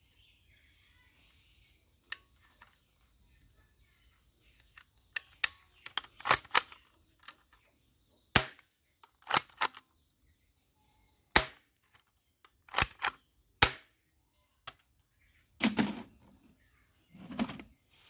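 Plastic toy gun firing repeatedly: sharp snapping shots that start about five seconds in, some single and some in quick pairs, irregularly spaced.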